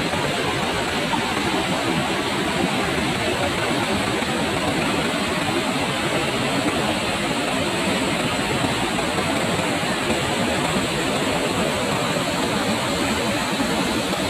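Dudhsagar Falls' water pouring down: a steady rushing noise that never changes in level.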